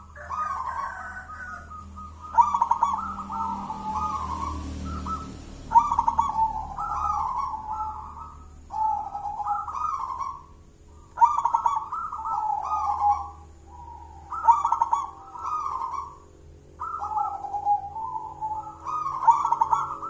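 Zebra dove (perkutut), a local wild-born Javanese bird, singing its cooing song: a phrase of bubbling, warbling coos repeated about every three seconds, some eight times.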